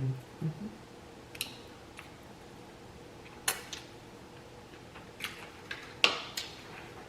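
Close-miked eating sounds: a handful of short, sharp mouth clicks and smacks, scattered a second or more apart, the sharpest about six seconds in.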